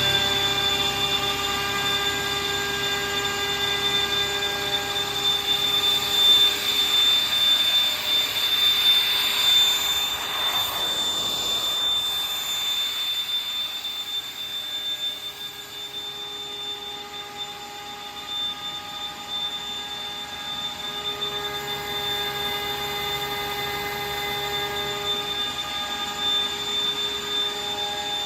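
Grassair 22 kW direct-drive screw air compressor running just after start-up, a steady machine drone with a high whine. About ten seconds in a hissing swell rises and fades, and afterwards the machine runs quieter.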